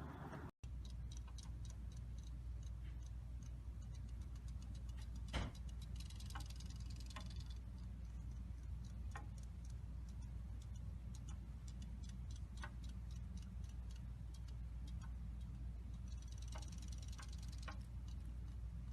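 Faint, soft clicking or ticking over a steady low hum, with one louder click about five seconds in and two short spells of rapid fine clicking.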